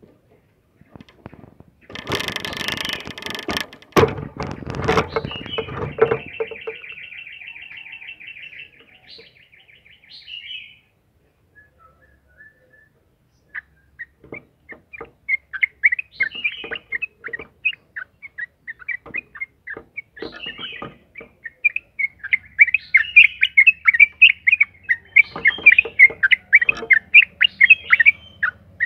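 Yellow-vented bulbul (trucukan) in full song: a rapid, even trill, the long roll (ropel panjang) that keepers play as a lure to set other bulbuls singing, then after a pause a run of quick chirping notes that grows louder and denser near the end. A loud noisy burst comes before the trill, a couple of seconds in.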